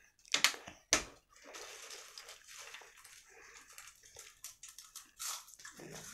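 A plastic water bottle is handled and set down with a knock about a second in. Then potato chips are handled and crunched, a low rustling with many small crackles.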